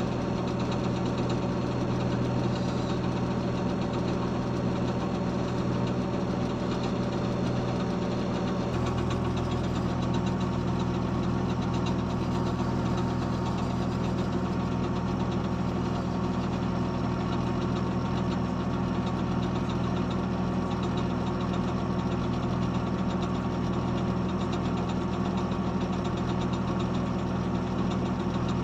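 Heavy diesel engine of road-working machinery running steadily at a low, even speed, its low hum shifting slightly about nine seconds in.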